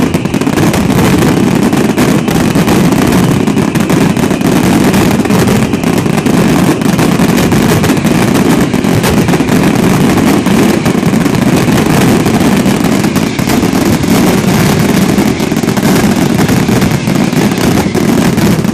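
Aerial fireworks going off in a dense, continuous barrage: shell bursts and crackle so rapid that the bangs run together into one loud, unbroken rumble.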